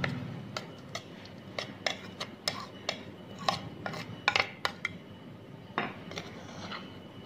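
A spoon tapping and scraping against a plate and bowl as chopped vegetables are pushed off the plate: about a dozen sharp, irregular clicks.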